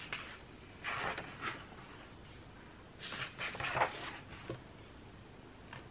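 Large paper pages of a colouring book being turned by hand, rustling and sliding twice: about a second in and again around three seconds in.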